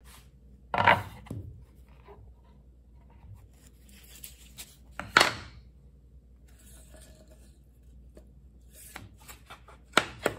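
Wooden boards, prefinished white oak flooring and a plank, set down and handled on a metal table saw top: three sharp wooden knocks, about a second in, around five seconds in and near the end, with a few lighter clicks and some rubbing between them.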